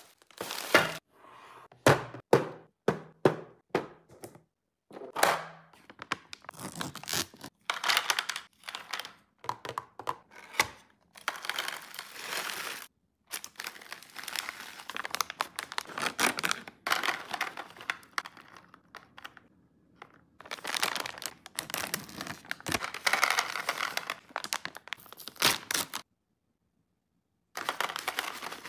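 Plastic bag and snack packaging crinkling and tearing open, with candy tipped from the packets into the compartments of a clear plastic divided snack tray. A quick run of sharp knocks and clacks in the first several seconds.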